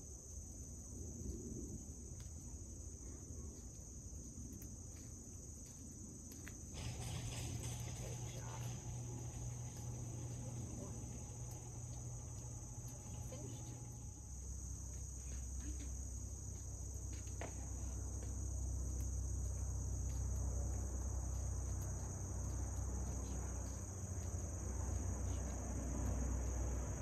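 Steady, high-pitched chorus of crickets trilling, with a low rumble that grows louder from about halfway through.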